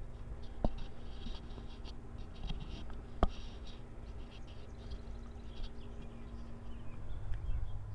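Backyard ambience: small birds chirping in quick runs over a low steady rumble, with two sharp clicks, one under a second in and one a little over three seconds in.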